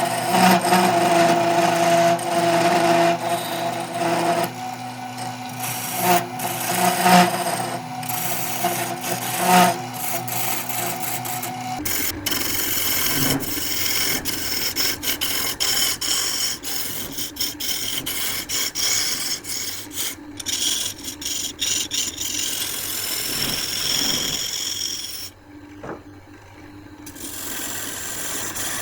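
Wood lathe running while a tool or abrasive rubs against the spinning wood: a continuous scraping over the steady hum of the lathe motor. About twelve seconds in, the hum drops away and the scraping turns noisier and full of small clicks. It dips briefly near the end.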